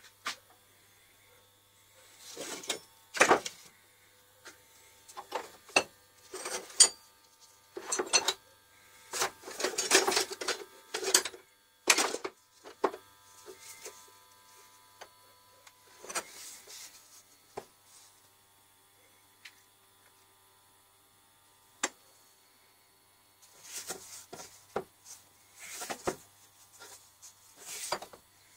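Metal hand tools clanking and scraping against each other as a tray of old tools is rummaged through and a hammer head is lifted out. The knocks come irregularly, thickest in the first half, thin out in the middle, and pick up again near the end.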